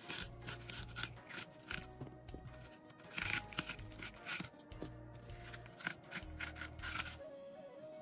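Background music with a repeating bass line, over short repeated scraping strokes of a metal melon baller scooping the core out of a Granny Smith apple.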